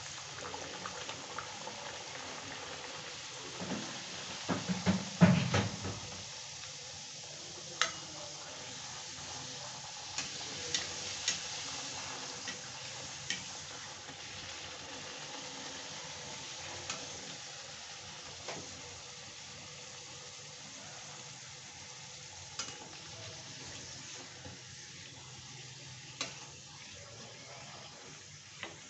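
Whole-wheat puri deep-frying in hot oil in a kadhai: steady sizzling. A cluster of loud knocks from the metal spatula against the pan comes about four to six seconds in, with scattered single clicks afterwards.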